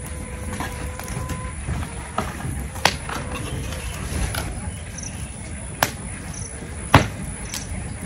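A smouldering pile of dry palm fronds and farm debris being raked and poked with a long-handled tool: a few sharp cracks and snaps, the loudest about seven seconds in, over a steady low rumble.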